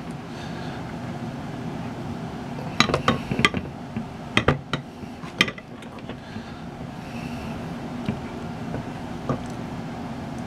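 Clear acrylic clay roller being rolled over a silkscreen on polymer clay, the hard roller giving sharp clicks and knocks against the tile beneath: a cluster about three seconds in, then a few more scattered. A steady low hum runs underneath.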